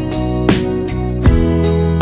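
Background instrumental music with plucked guitar-like notes and a steady beat.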